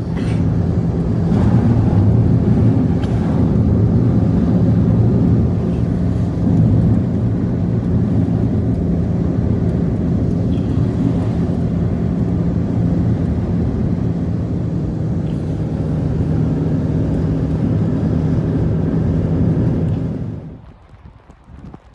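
An engine running steadily with a constant low hum, starting abruptly and cutting off about twenty seconds in.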